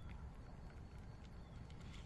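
Cats crunching dry kibble: faint, irregular small clicks over a steady low outdoor rumble, with a short high chirp about one and a half seconds in.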